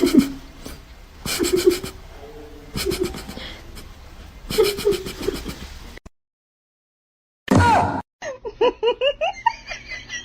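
A person laughing in bursts about every second and a half. After a second of silence comes a quick run of short, high, rising-and-falling calls.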